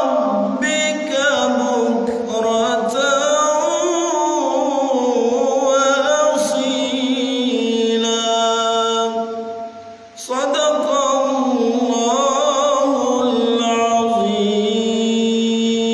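A man reciting the Quran in the melodic tilawah style, holding long notes with wavering ornaments. There is a short break for breath about ten seconds in, then the recitation resumes.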